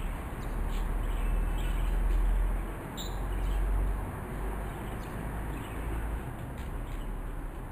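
Outdoor background: a low rumble that swells and eases, with a few faint, short bird chirps, the clearest about three seconds in.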